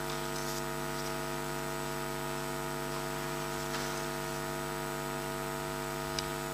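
Steady electrical mains hum with a stack of evenly spaced overtones, unchanging throughout, over a faint hiss. There is a tiny tick or two near the end.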